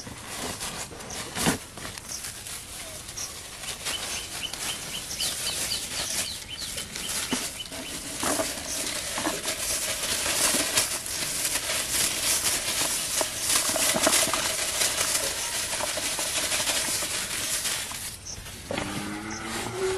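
Close, continuous rustling and crackling with many small clicks, growing louder toward the middle and stopping about two seconds before the end.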